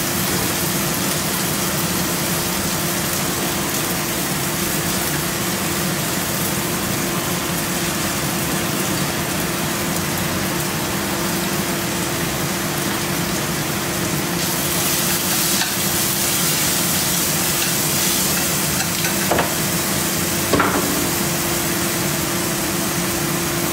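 Food sizzling as it fries in a pan and is stirred, over a steady hum, with a louder stretch of sizzle about two-thirds of the way through and two sharp clinks near the end.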